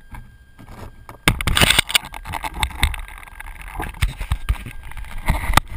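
Loud, irregular rustling, scraping and knocking picked up through the glider's onboard camera as the model is pulled out of dry brush and handled, starting about a second in.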